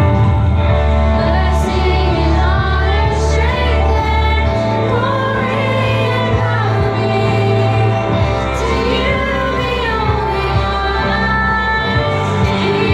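Contemporary Christian worship song: female voices singing over instrumental music with sustained bass notes.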